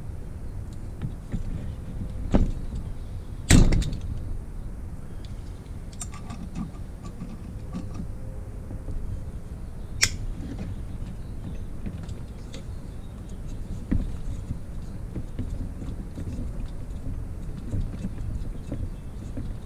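Occasional knocks and clicks of tools and parts being handled on a small two-stroke moped engine during its teardown, over a steady low rumble. The loudest knock comes about three and a half seconds in.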